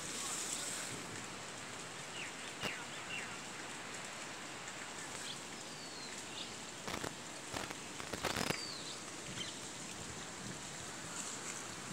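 Steady rush of running water from rain runoff flowing through waterlogged fields after a heavy downpour. A few short bird chirps and several sharp clicks come over it, the strongest clicks about seven and eight and a half seconds in.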